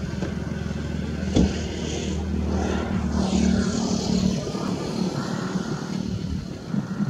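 A vehicle engine running with a steady low hum, which drops away about four and a half seconds in.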